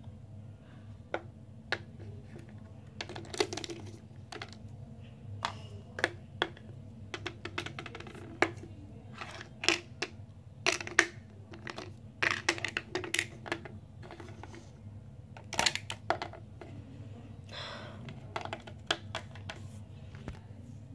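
Hard plastic toy pieces clicking and knocking against each other and the wooden floor as they are handled, many short sharp taps in irregular clusters, over a steady low hum.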